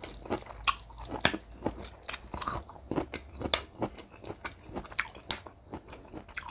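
Scattered sharp clicks and cracks as the shell of a grilled giant river prawn's claw is snipped with kitchen scissors and then prised apart by hand, recorded close to the mic.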